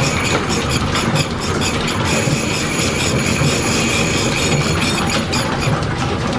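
Belt-driven horizontal milling machine running a metal slitting saw to cut the split in a piston ring. A steady mechanical clatter and rumble, with a steady high whine over it.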